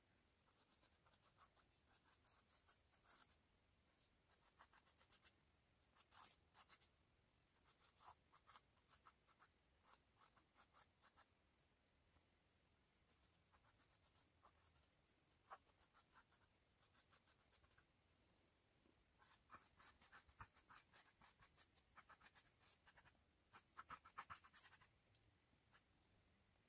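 Faint scratching of a drawing tool on a stretched canvas as a face is sketched: quick short strokes in bursts with pauses, busiest in the last few seconds.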